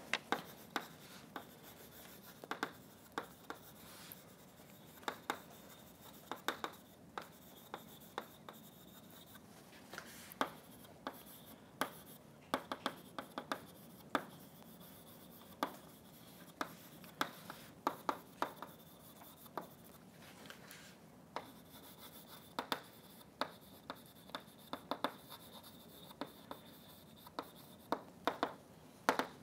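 Chalk writing on a blackboard: a faint, irregular run of short taps and scratch strokes, several a second, with brief pauses between words.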